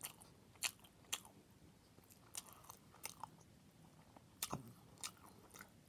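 A person chewing a roast turkey, ranch and bacon sandwich close to the microphone: faint, scattered wet mouth clicks and smacks, about ten of them, irregularly spaced.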